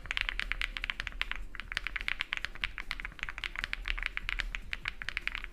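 Fast typing on an Epomaker custom mechanical keyboard: a dense run of sharp clacks, several a second, with a brief pause about one and a half seconds in.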